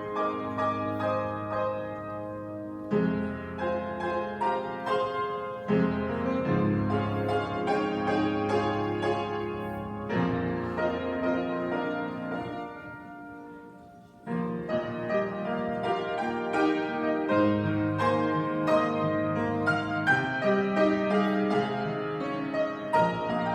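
Piano music: a run of chords and melody notes that fades down just past halfway, then picks up again with the next phrase.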